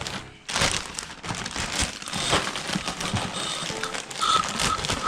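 Plastic packaging bag being handled and crinkled, a dense crackling rustle that starts about half a second in.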